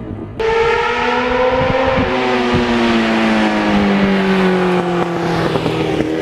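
Sport motorcycle engine running at speed. It cuts in abruptly about half a second in, and its pitch sinks slowly through the next few seconds as it eases off.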